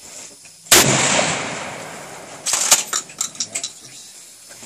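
A single shotgun shot just under a second in, its echo fading over a second or so, followed about two seconds later by a quick run of sharp clacks from the pump action being cycled.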